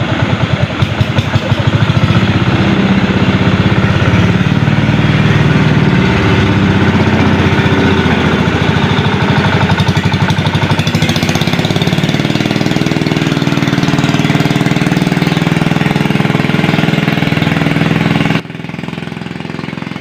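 Small boat engine running with a fast, even knocking beat. Its pitch rises about twelve seconds in as it picks up, and it cuts off abruptly near the end.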